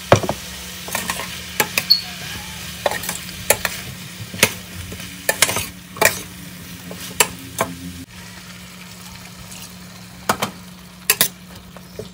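A metal spoon stirring sliced chayote and pork in a stainless steel frying pan: irregular clinks and scrapes against the pan over a steady sizzle of sautéing.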